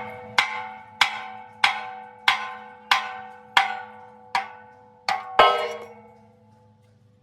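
Hammer striking steel in a metalworking repair, about nine blows at a steady pace of roughly one and a half per second. Each blow rings out like a bell. The last two come close together, and their ring fades over about a second.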